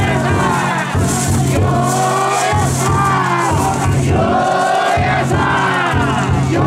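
A crowd of festival float bearers chanting loudly together, many male voices in long calls that rise and fall, one after another, as they carry a taiko float (yatai).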